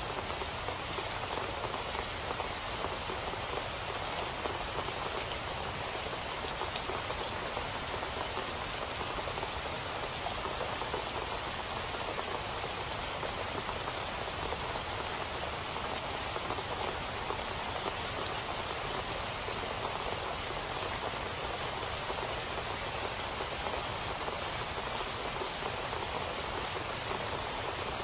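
Steady rain falling, an even, unbroken patter of many drops with no let-up.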